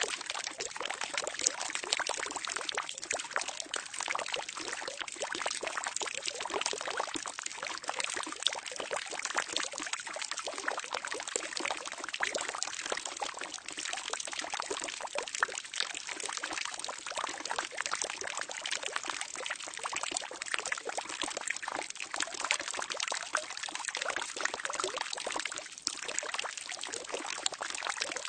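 Water pouring steadily into a barrel, a continuous splashing trickle with many small crackling droplets and no pauses.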